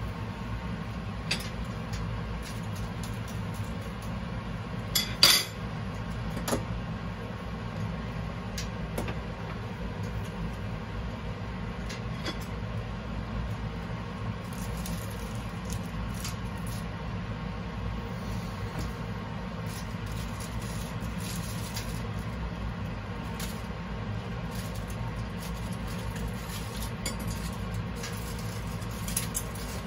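Aluminium Yakkun DX roasting pot and its lid clinking and clanking as the lid is taken off and the foil packets are lifted off the wire rack, with one loud metallic clank about five seconds in and scattered lighter clicks over a steady low hum.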